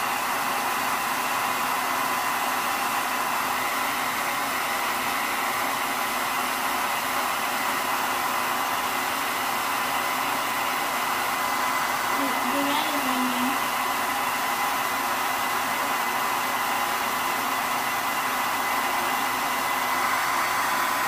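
Hand-held hair dryer blowing steadily, a rush of air with a steady whine, aimed at a canvas to melt crayon wax.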